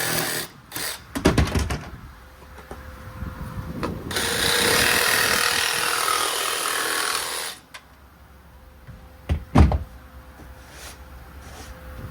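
A power tool runs steadily for about three and a half seconds, with a few knocks before it and two loud thumps close together afterwards, typical of work on plywood panels.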